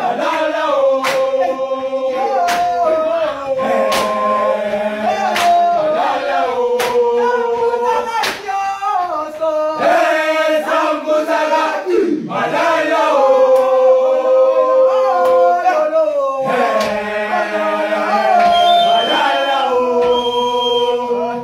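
Gwijo: a large group of male voices singing a Xhosa chant in harmony, holding long chords that shift every second or two, with a sharp percussive beat roughly every second and a half.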